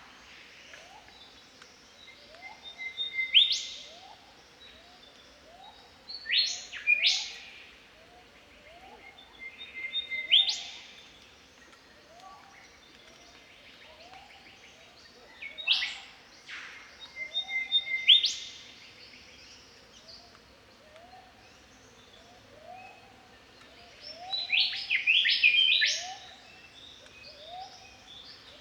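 Australian golden whistler (Pachycephala pectoralis) singing: about six loud phrases of clear whistles, each ending in a sharp whipcrack-like note, with the last phrase near the end a quicker run of several cracks. Under the song a fainter low call repeats about once a second.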